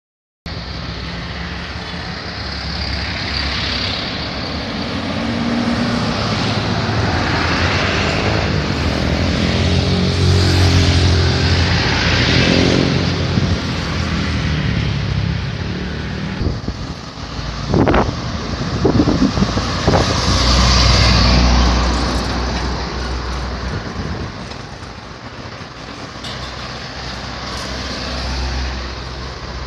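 Roadside traffic: cars, motorcycles, a bus and trucks passing close by, their engine and tyre noise rising and fading as each goes past, with a short sharp sound about two-thirds of the way through.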